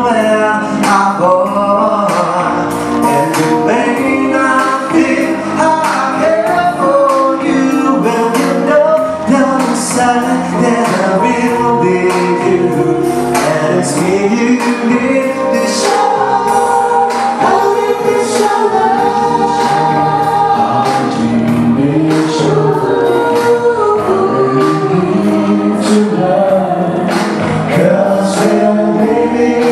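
Live band music: a male and a female singer sing a song together over band accompaniment with a steady beat.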